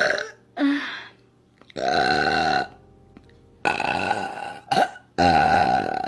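A woman burping deeply, a run of about four separate burps with short pauses between them. Each is about a second long, and the last runs on past the end.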